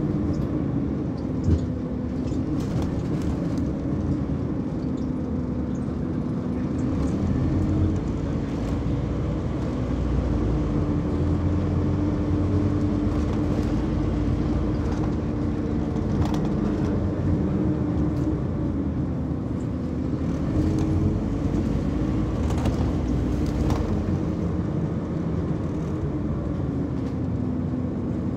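Inside a moving Scania OmniCity single-deck bus: diesel engine and drivetrain running under way, a steady rumble with a hum that drifts slightly up and down in pitch as the speed changes, and now and then short rattles and clicks from the cabin.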